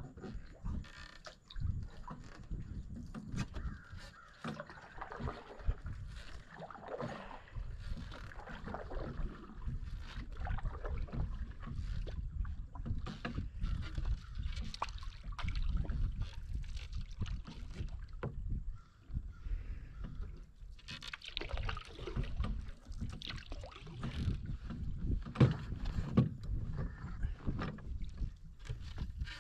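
Canoe being paddled on calm water: paddle strokes swishing and dripping, water washing along the hull, and occasional light knocks against the canoe.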